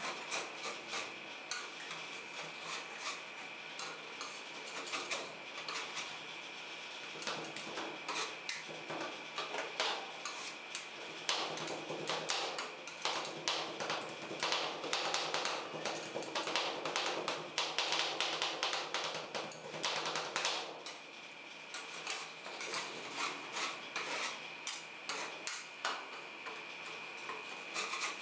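Two metal spatulas chopping and scraping rolled-ice-cream mixture on a frozen steel cold plate: rapid clinking taps of the blade edges on the steel, busiest in the middle, with a steady faint high whine underneath.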